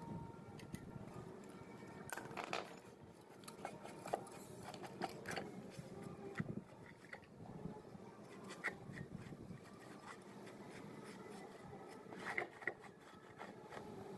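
Scattered light clicks, taps and scraping from hand work on water pump parts, with a few sharper clicks now and then over a low steady background.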